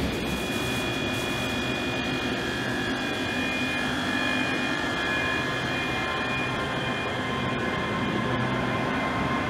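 Two coupled Class 385 electric multiple units alongside the platform, their electrical traction and auxiliary equipment giving a steady whine of several high tones over a low hum.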